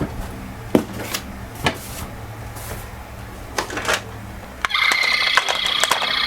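A few light plastic clicks and knocks as toy cars are handled. About four and a half seconds in, a toy ambulance's electronic siren switches on suddenly and keeps sounding, a steady multi-tone electronic wail, with more clicks over it.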